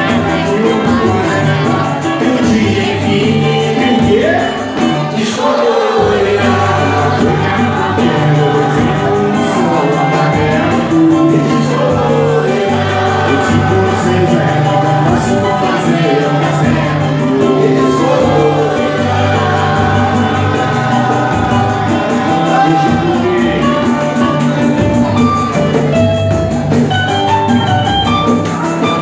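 Brazilian samba-style music with a cavaquinho and a singing voice over a steady bass, playing continuously.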